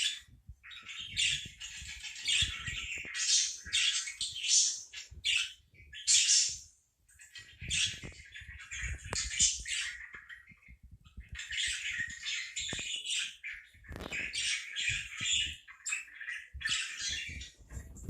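Parakeet chattering and squawking in bouts of harsh, high chatter, with brief pauses between them.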